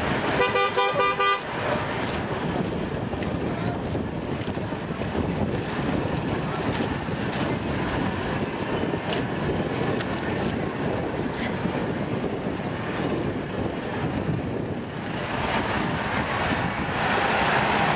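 A car horn honks for about a second at the start, a steady pitched tone, followed by steady outdoor street noise around parked and idling parade cars.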